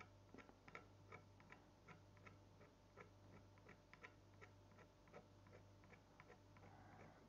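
Faint, unevenly spaced ticks and scratches, several a second, from a metal knitting needle scratched through oil paint on a heavily textured painting board.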